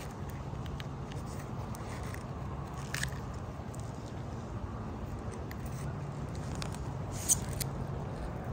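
Sealant being worked onto an RV roof: soft scraping and squishing, with a few sharp clicks, the sharpest about seven seconds in, over steady low background noise.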